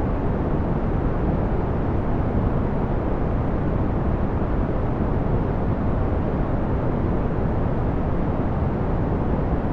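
Steady brown noise: an even, unbroken rushing hiss weighted toward the deep end, with little above the upper mids.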